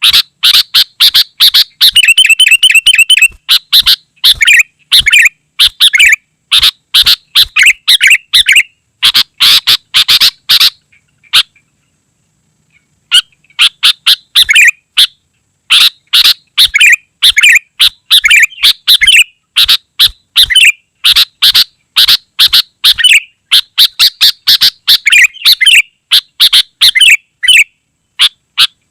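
Sooty-headed bulbul (kutilang) calling in a loud, almost unbroken stream of short chirping phrases, with a buzzy rapid trill about two seconds in and a brief pause near the middle.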